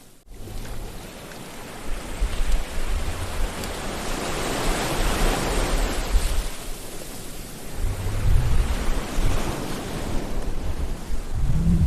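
Sea waves surging and washing in, a continuous rush that swells and ebbs several times, with a brief drop in the sound right at the start.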